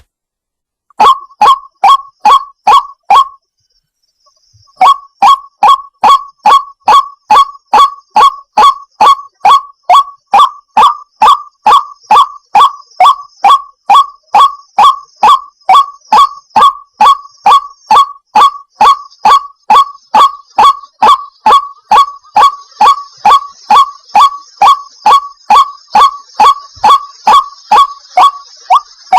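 White-breasted waterhen (chim cuốc) calling a monotonous, repeated single note, about two a second. Five notes, a short break, then a long steady series.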